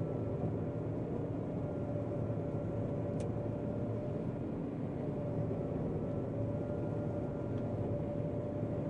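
John Deere 9500 combine harvesting soybeans, heard from inside the cab: a steady machine hum with a constant whine, and one brief click about three seconds in.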